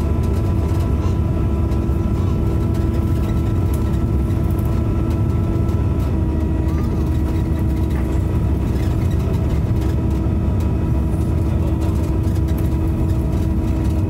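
Diesel bus engine running steadily, heard from on board: a heavy low rumble with a steady whine over it, the whine that bus enthusiasts call a "hoover".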